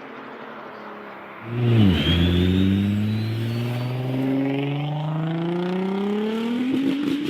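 Car engine accelerating. It comes in suddenly about a second and a half in, then climbs steadily in pitch for about five seconds without a break.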